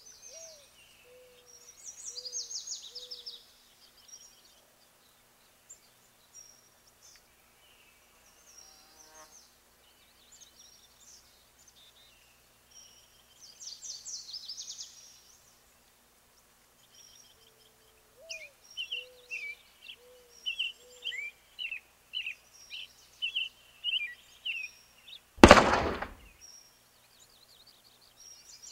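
Birds singing and chirping, with a low repeated call heard twice. About three-quarters of the way through comes a single loud bang, the loudest sound in the stretch.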